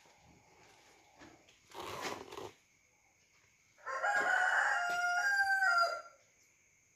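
A rooster crowing once, a drawn-out call of about two seconds that starts about four seconds in and steps down in pitch at the end. A shorter, noisy rustle comes about two seconds in, over a faint, steady, high-pitched whine.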